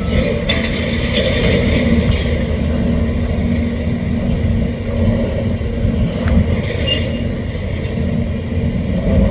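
Heavy demolition machinery running with a steady low engine rumble. Bursts of crunching, clattering debris come about half a second to two seconds in and again around seven seconds.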